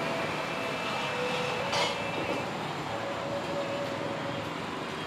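Steady background noise of a busy outdoor night market, with faint held tones and one brief sharp clack about two seconds in.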